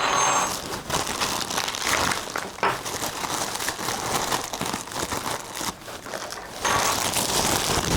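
Plastic packaging being handled and crinkled, coming in irregular bursts.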